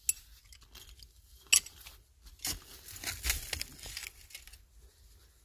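Loose soil and rubble scraping and crunching as a gloved hand digs around and pulls at a buried glass beer bottle, in a string of short, separate scrapes, the sharpest about one and a half seconds in.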